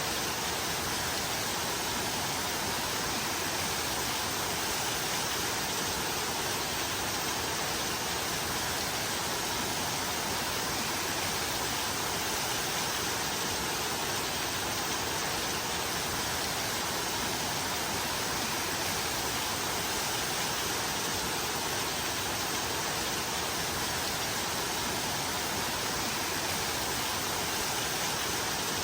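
Steady rain, an even unbroken hiss with no single drops, thunder or other sounds standing out.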